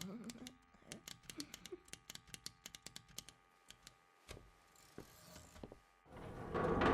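Machine sound effects: quick, irregular mechanical clicks and ticks, thick at first and thinning out, then a single low knock about four seconds in. Near the end a loud rushing swell builds up quickly.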